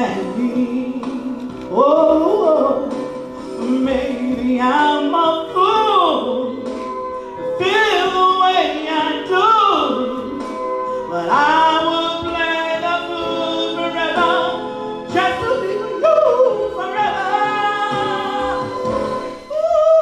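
A song: a solo singing voice in phrases over a steady instrumental accompaniment.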